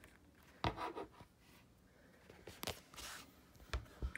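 Light handling noise from a plastic toy dinosaur and a paper picture book: a few soft knocks, with faint rubbing between them.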